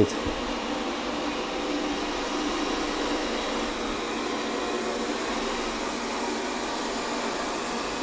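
Xiaomi robot vacuum cleaner running as it cleans the floor, a steady, even whirring noise.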